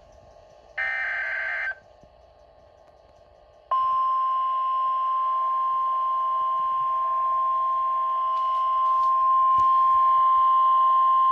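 Emergency alert signal: about a second in, a one-second digital data burst (the last of the SAME header bursts), then after a short gap the NOAA Weather Radio warning alarm, a single steady tone held for about eight seconds, growing slightly louder near the end, announcing a severe thunderstorm watch.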